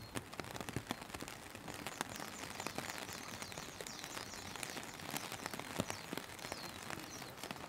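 Steady rainfall: a soft even hiss with many separate drops ticking irregularly close to the microphone.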